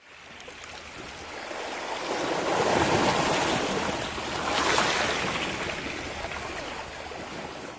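Small sea waves washing in over a pebble shore, a steady rushing hiss that swells twice, about three seconds in and again near five seconds, then eases off.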